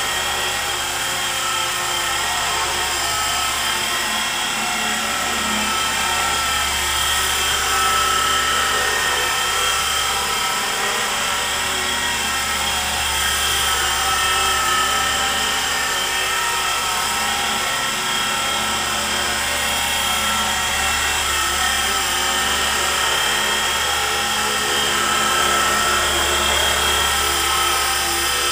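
E-flite Blade SR120 micro electric RC helicopter in flight: a steady high-pitched whine from its electric motors and spinning rotors, its pitch wavering slightly as it manoeuvres.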